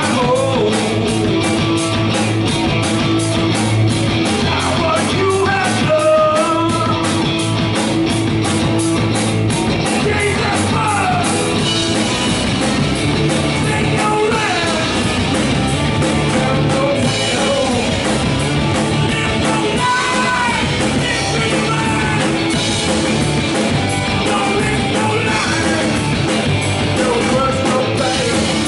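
Rock band playing a song, a singer's voice over guitars with a fast, steady beat.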